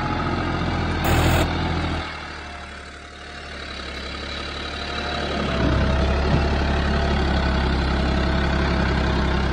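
John Deere 5310 tractor's three-cylinder diesel engine running as the tractor drives through deep mud. The engine sound drops away about two seconds in and builds back up from about five and a half seconds. A brief loud burst comes about a second in.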